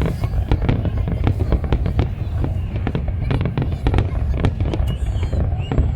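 Fireworks display going off: a rapid, continuous run of sharp bangs and crackles over a steady low rumble.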